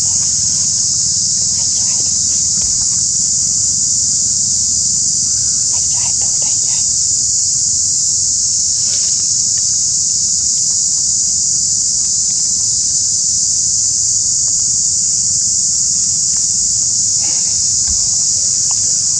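Steady, high-pitched drone of an insect chorus that never lets up, with a low rumble beneath and a few faint, short sounds now and then.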